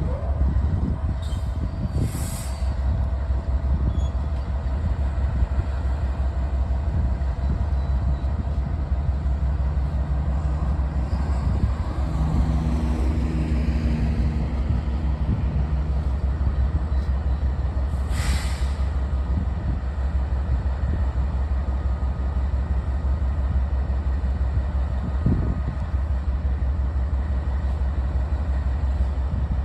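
Steady low rumble of a moving Louisville & Indiana freight train. Short hissing bursts come about two seconds in and again about eighteen seconds in, and a few faint held tones sound in the middle.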